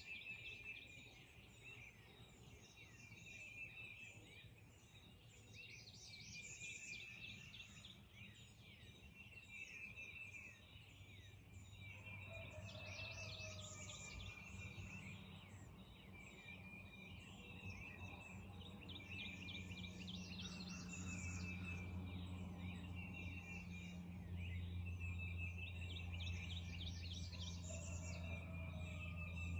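Wild songbirds singing in a dawn chorus, with short trilled phrases repeating every second or two throughout. A low steady hum comes in about halfway and grows louder toward the end.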